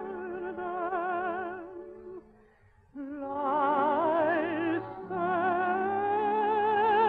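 A soprano singing a slow operatic melody with wide vibrato over a soft accompaniment, in held notes broken by a short pause about two seconds in.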